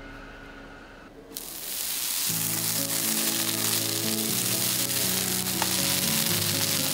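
A steady hiss sets in abruptly about a second in, over background music with held notes.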